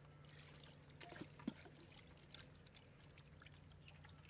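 Faint trickling and splashing of water as hands work in a large aluminium pot, with a couple of light knocks about a second and a half in.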